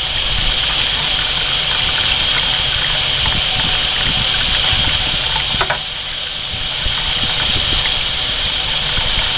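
Steady rush of running water, dipping briefly about six seconds in, while a trout is being cleaned under it.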